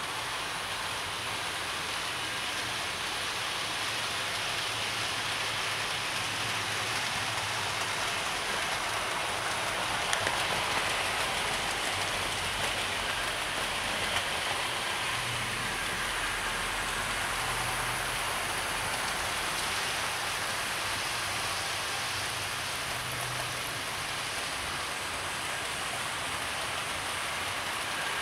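Several 00 gauge model steam locomotives and their coaches running round the layout at once: a steady, even running noise from their motors and wheels on the track.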